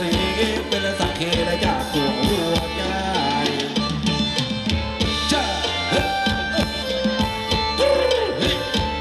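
Live Thai ramwong dance music from a band: drums and percussion keep a quick, steady beat under melodic instruments.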